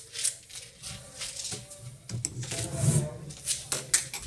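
Footsteps on a tiled floor, heard as a string of short knocks about two a second, with rubbing from the handheld phone. Near the end a hand works a brass door handle.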